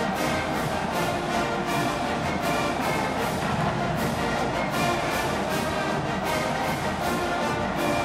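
Marching band playing, brass instruments carrying the tune over a steady drum beat.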